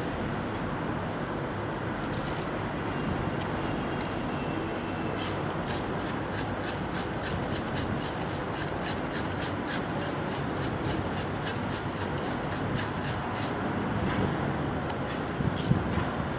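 Hand ratchet clicking steadily at about four clicks a second for several seconds as bolts are run in, over a steady background hum.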